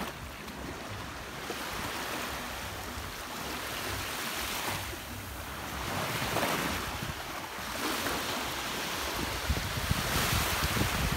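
Small waves washing onto a sandy shore, the hiss swelling and easing every few seconds, with wind buffeting the microphone.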